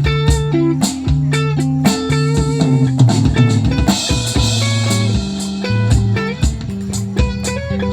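Band playing an instrumental groove on electric guitar, bass and drum kit, with steady drum hits under held bass notes; cymbals come in about halfway through.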